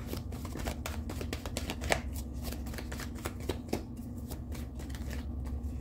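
A deck of oracle cards being shuffled by hand: a run of quick soft card clicks and slips, with a few sharper snaps about two seconds in and again past the middle. A steady low hum sits underneath.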